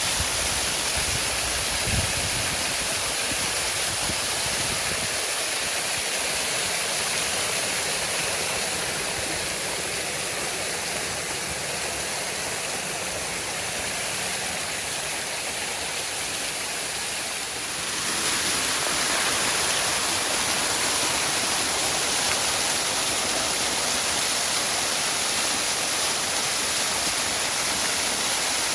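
Waterfall: a steady rush of falling water. It gets slightly louder and brighter about 18 seconds in, and there are a few faint low thumps near the start.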